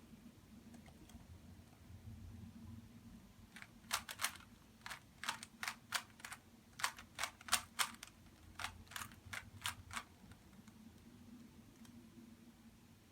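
Rubik's cube layers being turned quickly by hand: a run of sharp plastic clicks, about three a second, starting a few seconds in and stopping a few seconds before the end.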